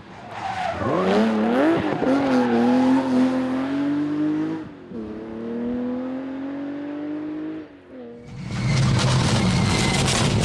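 Rally car engine accelerating hard past the stage, its pitch climbing with a brief gear-change dip about five seconds in before it climbs again. Near the end it breaks off, and a louder, rougher engine takes over.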